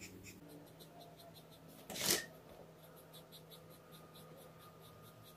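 Felt-tip marker scratching faintly on sketchbook paper in quick, evenly repeated strokes while a circle is drawn. About two seconds in, a brief rustling scrape as the spiral sketchbook is slid and turned on the table.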